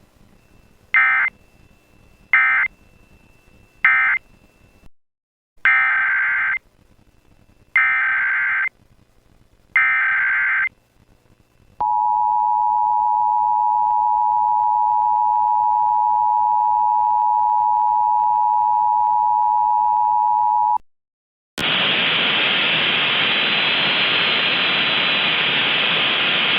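Emergency Alert System tones: six bursts of digital SAME header data, three short then three longer, followed by the steady two-tone attention signal held for about nine seconds. The tone cuts off, and after a brief gap a loud hiss of static takes over near the end.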